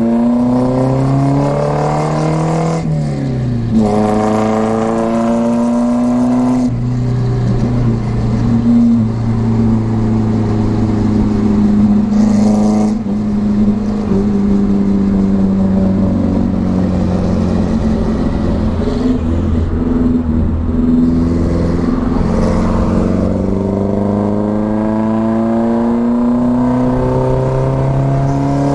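Volvo 242GL's four-cylinder engine and new muffler under way: exhaust note rising as it accelerates, dropping at gear changes about three and a half and about six and a half seconds in, then holding a steady cruise before pulling up through the revs again and shifting near the end.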